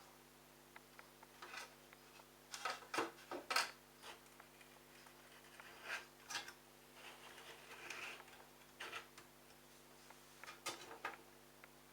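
Scattered clicks, knocks and scrapes of plastic parts being handled while the drain pump filter cap of a Bosch front-loading washing machine is worked open, with a cluster of knocks about three seconds in and another near the end.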